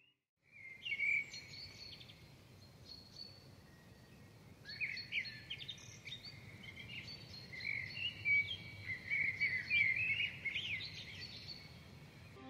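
Small birds chirping and singing in quick rising and falling calls over a steady background hiss, starting after a brief silence and growing busier about halfway through.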